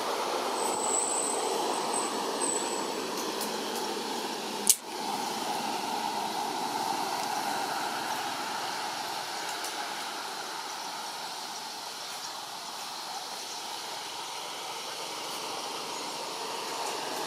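Steady outdoor background noise with a thin high whistle for about two seconds near the start and one sharp click about five seconds in.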